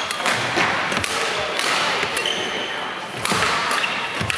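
Badminton rally on a wooden sports-hall court: several sharp knocks of racket strikes and footfalls as the players move, with short shoe squeaks, over the echoing background of a busy hall.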